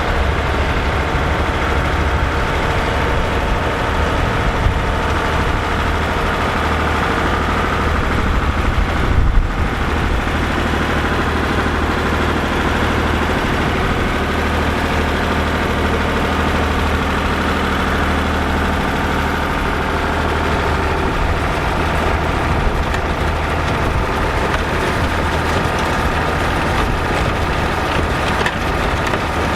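Massey Ferguson 3070 tractor's diesel engine running steadily under work, with a short knock about nine seconds in.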